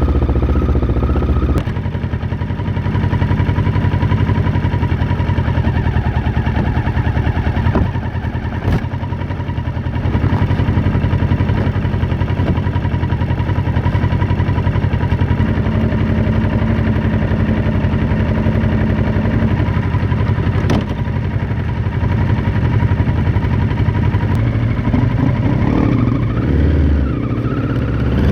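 Kawasaki Ninja 650's parallel-twin engine idling steadily through an Arrow X-Kone exhaust with its dB killer fitted, heard close up from under the seat. Near the end the revs start to rise as the bike pulls away.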